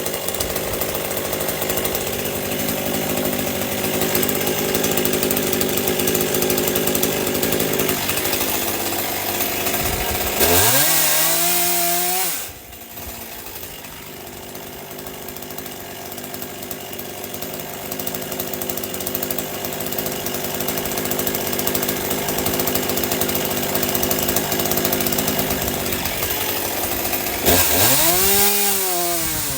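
Stihl MS 201 C-M two-stroke chainsaw cutting into a large Douglas fir round under load. About ten seconds in, the engine revs up sharply and then drops to idle. It goes back into the cut and revs up sharply again near the end.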